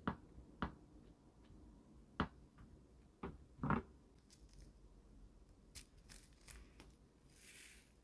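Hands working a Popin' Cookin' DIY candy kit's plastic tray and packets: five sharp clicks and taps in the first four seconds, then fainter ticks and a brief papery rustle near the end.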